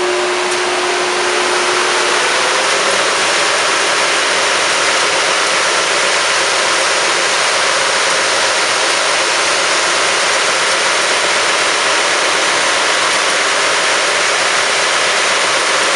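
CGA Prestige Junior 37-inch wide belt sander running: a loud, steady rushing noise, with a single steady tone that fades out about two seconds in.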